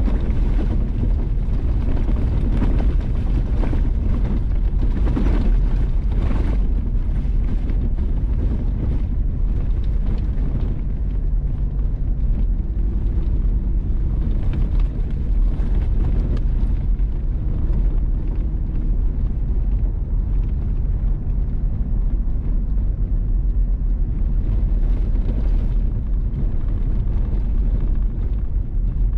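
A vehicle driving on a gravel road: steady low rumble of tyres on loose gravel and engine. Crackles of gravel against the vehicle come and go during the first several seconds.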